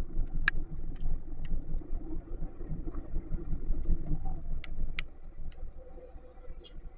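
Motorcycle on the move in the rain: a low engine and road rumble that eases off in the last second or so. A few sharp ticks cut through it, twice in quick runs of three.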